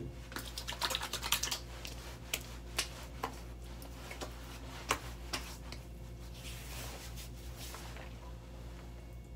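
Hands slapping and patting aftershave onto a freshly shaved face and neck: a quick, uneven run of sharp slaps over the first five seconds or so, then a softer rustle for a couple of seconds.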